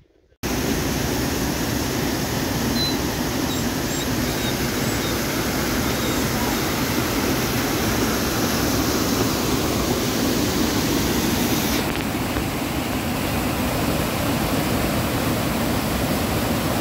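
Loud, steady rush of a waterfall, white water pouring down over rocks, starting abruptly under a second in. It turns a little duller about twelve seconds in.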